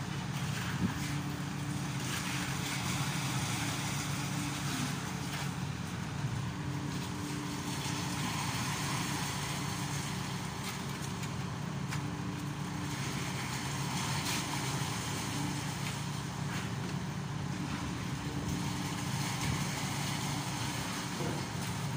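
Diesel engine of a Carmix self-loading concrete mixer running steadily at a constant speed.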